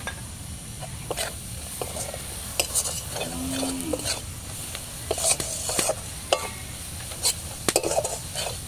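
Metal spatula scraping and clinking against a metal karahi in irregular strokes as ground spices are stirred into onions frying in mustard oil, with a low sizzle underneath.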